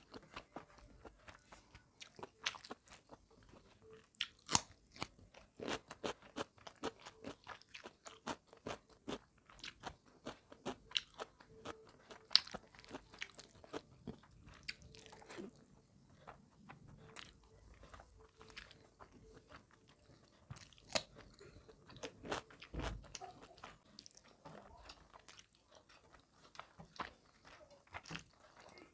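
Close-miked eating by hand: chewing rice and curry with wet lip smacks and many irregular sharp mouth clicks, along with fingers squishing rice on a steel plate. One dull low bump comes about three-quarters of the way through.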